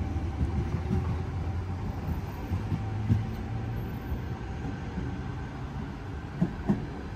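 A train moving through a station: a steady low rumble with scattered knocks, and two sharper knocks close together near the end.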